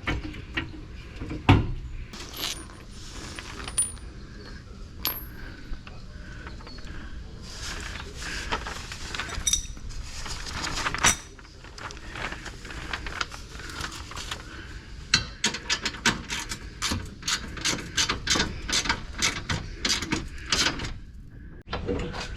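Metal clinking and knocking of hardware and tools against the bumper's steel brackets. There are sharp knocks about a second and a half in and again about eleven seconds in, then a quick run of clinks, several a second, near the end.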